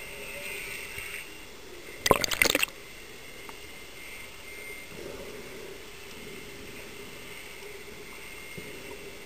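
Underwater sound in a swimming pool: a steady hiss with faint steady whines, and about two seconds in, a brief loud burst of rapid bubbling crackles lasting about half a second.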